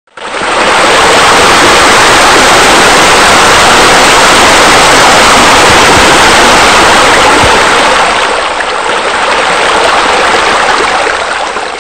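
Loud, steady rush of falling, splashing water, easing slightly about eight seconds in.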